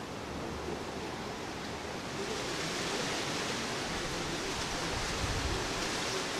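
Steady outdoor background hiss with no distinct event, turning brighter and a little louder about two seconds in.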